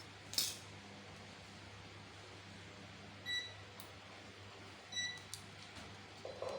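Two short electronic beeps about a second and a half apart, with a sharp click near the start and a low steady hum underneath.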